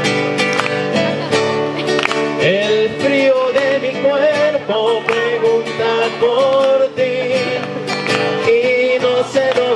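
Acoustic guitar being strummed in a steady rhythm. From about two and a half seconds in, a held, wavering melody line runs over it.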